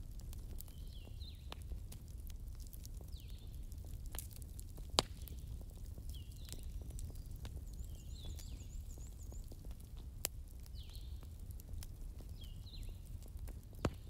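Wood fire crackling, with a low rumble under scattered sharp pops; three louder pops stand out, about a third of the way in, two-thirds in and at the very end. A high chirp repeats every couple of seconds, with a brief fast trill about halfway.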